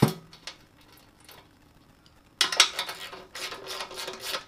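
A sharp metallic clink, then from about two and a half seconds in a hand ratchet clicking rapidly for about two seconds as it runs an oil pan bolt down into the block.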